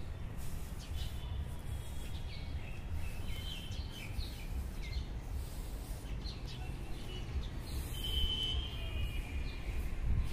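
Birds chirping in short scattered calls, with a longer call about eight seconds in, over a steady low outdoor rumble.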